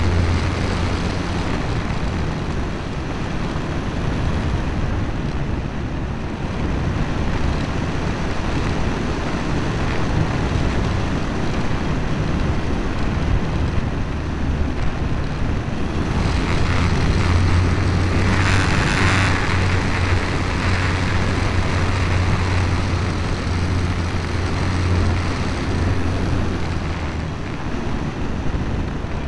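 Electric motor and propeller of a Multiplex FunCub RC model plane heard from a camera on its fuselage: a steady low drone with wind noise over the microphone. A brief louder hiss comes about two-thirds of the way through.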